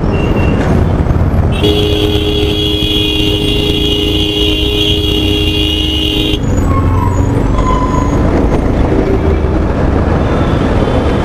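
Road traffic heard from a slow-moving motorcycle in heavy city traffic. A vehicle horn is held for about five seconds, starting about two seconds in.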